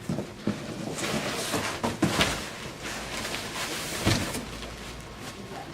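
Furniture parts being pulled from their packaging and handled: packaging rustling, with several short knocks and thumps as the pieces are moved.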